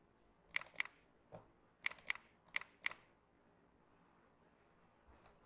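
Computer mouse clicking: three quick pairs of sharp clicks, then a faint single click near the end.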